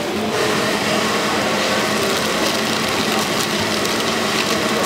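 Steady roar and hiss of a gas wok burner at a street-food stall, with a low hum running under it.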